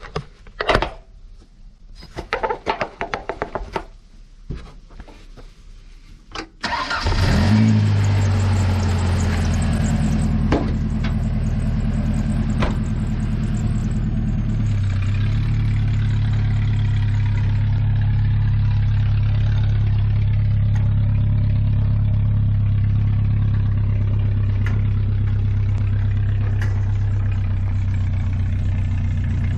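A 1994 Ford Ranger's 2.3-litre four-cylinder engine is started without an ignition switch. After several seconds of clicks and fiddling it cranks briefly, catches about seven seconds in, and settles into a steady idle.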